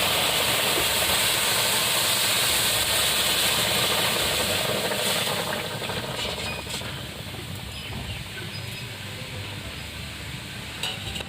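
Hot water hitting a pan of frying vegetables: a loud hiss and sizzle of steam that dies down after about five seconds to a quieter, steady sizzle, with a few light clicks.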